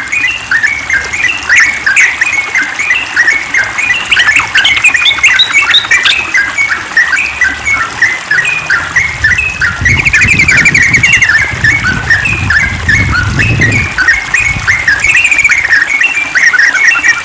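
Yellow-vented bulbul singing a fast, unbroken run of chattering notes, with a quick trill about ten seconds in.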